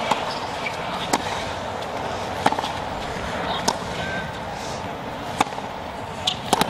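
Tennis ball struck by rackets in a baseline rally on a hard court: sharp pops about every second or so, two close together near the end, over a steady background hush.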